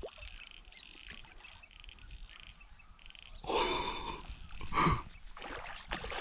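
A hooked silver perch splashing and thrashing at the water's surface as it is played in to the bank, with two loud splashes about three and a half and five seconds in.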